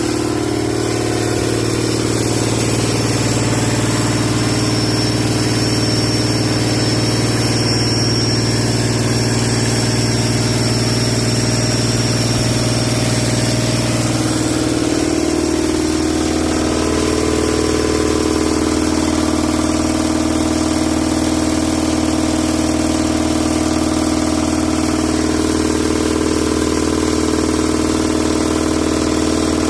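Hino J08 inline-six diesel engine idling steadily; about halfway through its idle settles to a slightly lower speed.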